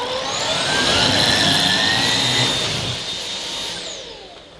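Miele Duoflex HX1 cordless stick vacuum on a plush-pile carpet, starting with a rising whine, running briefly, then winding down with a falling whine near the end as it cuts out. The owner blames the plush pile, with the brush roll stalling in it.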